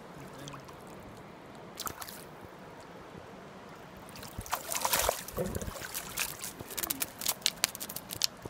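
A hooked trout splashing and thrashing at the river surface about four seconds in as it is brought to the landing net, followed by a run of sharp clicks and knocks. Running river water throughout.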